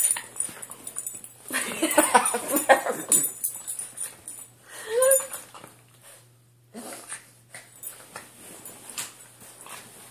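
A dog whimpering in short bursts, with a brief rising-and-falling whine about five seconds in.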